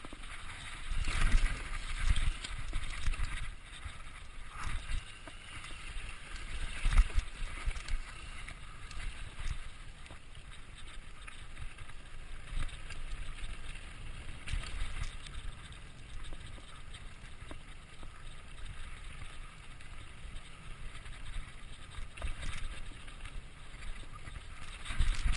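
Mountain bike descending a rough dirt trail, ridden with no chain fitted: steady tyre and wind rush with irregular knocks, rattles and thumps as the bike hits bumps.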